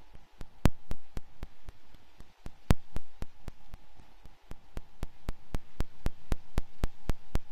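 Minimal experimental electronic music: a steady train of sharp clicks, about four or five a second with a few louder accents, over a faint held tone.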